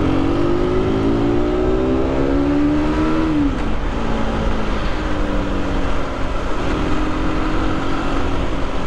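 Aprilia RS 125's single-cylinder four-stroke engine pulling hard under acceleration, rising in pitch for about three seconds, then dropping back at an upshift and running more steadily as speed builds.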